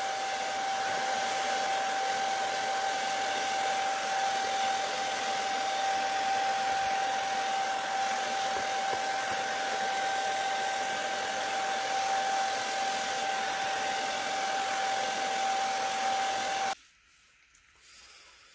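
Handheld hair dryer running steadily, a rush of air with a steady whine through it, then switched off abruptly near the end.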